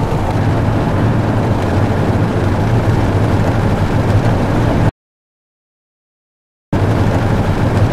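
Steady road and engine noise inside a moving Chevrolet Tahoe, with a low drone. It cuts to dead silence for about two seconds past the middle, then resumes.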